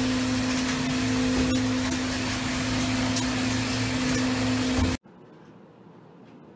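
Loud, steady machinery noise aboard a longline fishing boat, with a constant low hum under it. It cuts off abruptly about five seconds in, leaving only a much quieter hiss.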